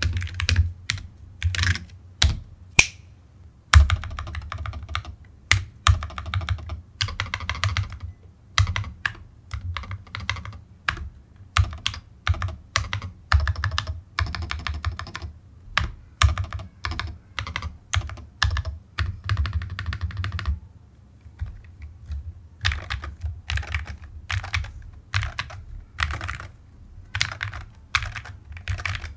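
Typing sound test on a Mchose ACE 60-series hall-effect (magnetic-switch) 60% keyboard: fast, continuous keystroke clacks, with a brief pause about two-thirds through.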